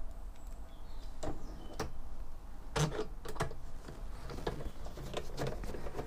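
Irregular light clicks and knocks of a screw and screwdriver being handled against a desktop PC's steel case, as the optical drive cage is screwed back in.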